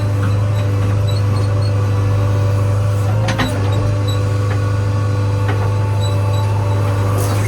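Heavy diesel engine running steadily with a constant low hum, with a sharp knock about three seconds in and another near the end.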